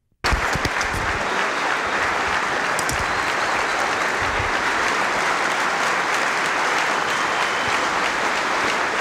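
Audience applauding, starting suddenly just after the start and holding steady throughout.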